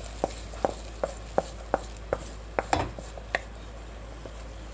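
A metal spoon knocking and scraping against a steel pan as sautéed onion and tomato are emptied out of it: a string of sharp clinks, about two or three a second for the first two seconds, then a few more, more spaced out.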